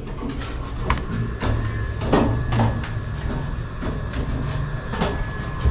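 Irregular knocks, clicks and scraping from hands working on the fittings under a pressurized solar water heater tank, over a steady low hum.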